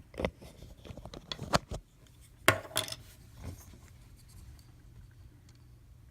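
Handling noise: a quick run of clicks, taps and light scrapes of small hard objects being moved and set down, with one sharp knock about two and a half seconds in, then only a faint low hum.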